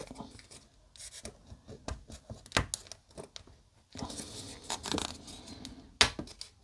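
Small polystyrene model-kit parts being handled and fitted together: scattered light clicks and taps, with a stretch of rustling about four seconds in.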